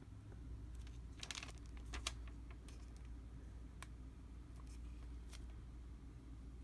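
Faint handling noise: light clicks and short rustles, clustered about one to two seconds in with a few single ticks after, over a low steady hum.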